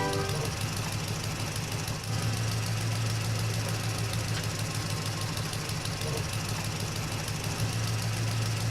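A vehicle engine running steadily as a cartoon sound effect. The tail of background music fades out in the first half second.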